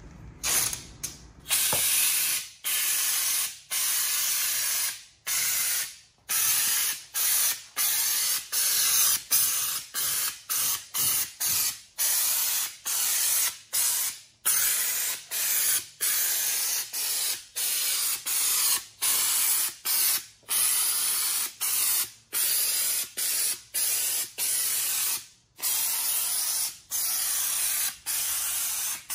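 Compressed-air spray gun spraying water-based Lizard Skin sound-deadening coating onto a car's underbody: a hiss of atomising air and coating in repeated short bursts, most about a second long, cut by brief pauses as the trigger is released.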